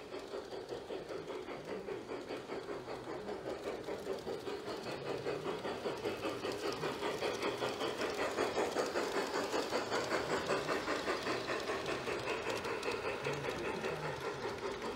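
G scale model steam locomotive and its short freight train running past on garden track: a steady running sound with a quick rhythmic beat of about four a second, growing louder toward the middle and fading near the end.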